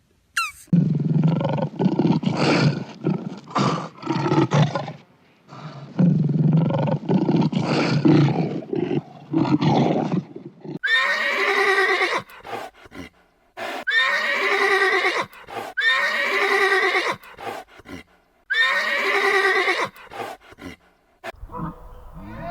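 Animal calls: two long, rough, low calls, then a series of shorter higher calls that each fall in pitch.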